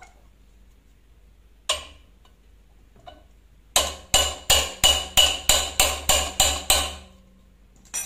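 A hammer striking the handle of a 17 mm ring spanner to tighten the bolt on a washing machine's motor rotor: one metallic knock, then a quick run of about ten ringing knocks, about three a second.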